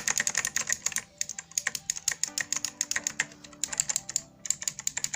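Fast clicking keystrokes on an Ozone Alliance mechanical-hybrid gaming keyboard, a dense run of key presses with a short pause about four seconds in, over a song playing faintly behind.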